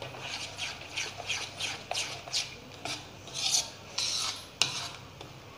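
Steel spoon stirring thick rice-flour and jaggery batter in a ceramic bowl: quick repeated scrapes against the bowl, with one sharp clink of the spoon on the bowl near the end.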